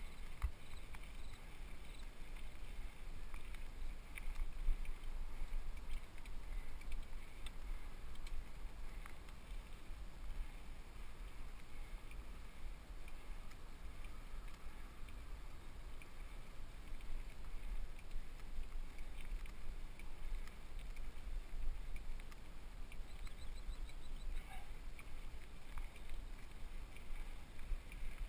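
Specialized FSR Pro mountain bike riding a dirt singletrack, heard from a helmet-mounted GoPro HD: a steady low rumble with scattered light clicks and rattles from the bike and trail.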